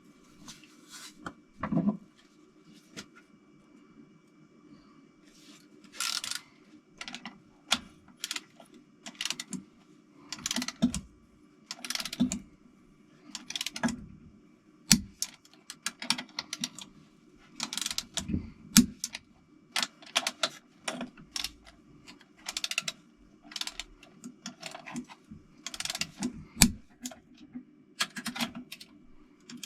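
Hand tools working on engine parts: a series of short metallic clicking and rattling bursts, roughly one a second, over a steady low hum.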